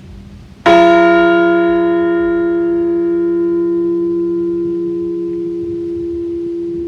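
A Liberty Bell replica is struck once, under a second in, as a single toll for a deceased veteran. The higher overtones die away within a few seconds, and a deep hum lingers, fading slowly.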